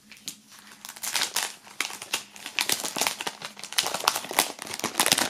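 Clear plastic foil sleeve crinkling as it is handled and pulled open around a paper sheet of temporary tattoos. There are many quick crackles, starting about a second in and getting louder toward the end.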